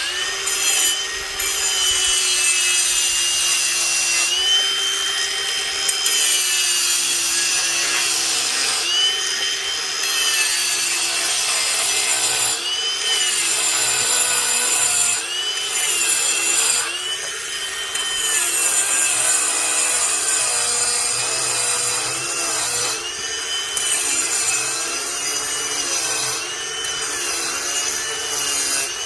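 Ryobi cordless brushless angle grinder with a diamond wheel grinding concrete, starting at the beginning. Its motor pitch sags again and again as the wheel is pressed into the concrete and climbs back when the pressure eases.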